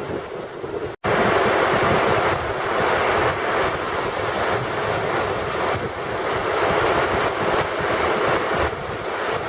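Heavy thunderstorm rain pouring down with strong wind gusting across the microphone, a dense steady hiss over an unsteady low buffeting. About a second in it breaks off for an instant and comes back louder.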